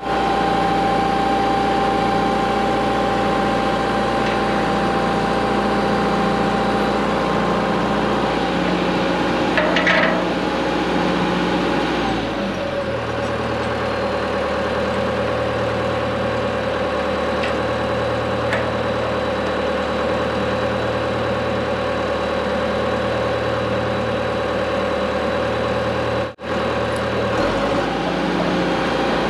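Heavy machine's engine running steadily. Its note changes about halfway through and changes back near the end.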